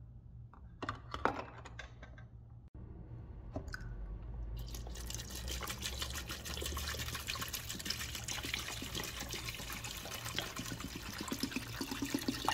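Hydrogen peroxide poured from a plastic bottle into a plastic bowl of alarm clock casing parts: a steady splashing stream from about four and a half seconds in. Before it, a few light knocks.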